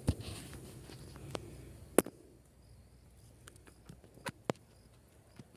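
Irregular sharp clicks and knocks, the loudest about two seconds in, over a low rumbling noise that fades during the first two seconds.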